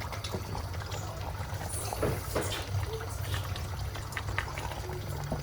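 Pot of Nigerian white soup (ofe nsala) bubbling on the stove, with irregular small pops and gurgles over a steady low hum.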